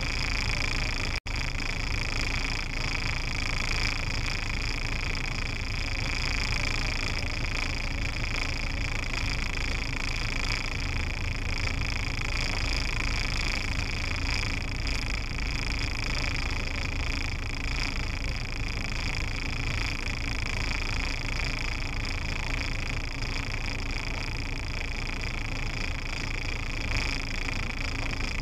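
Steady in-cabin noise of a car idling in traffic, picked up by a dashcam: a low rumble under a steady high-pitched hum. The sound drops out for an instant about a second in.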